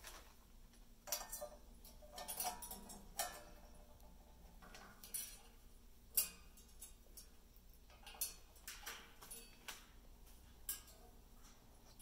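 Irregular metallic clinks and taps, about ten in all and spaced unevenly, as an Amazon parrot's beak and claws knock against its cage's metal ladder and stainless-steel food bowl; the loudest comes about six seconds in.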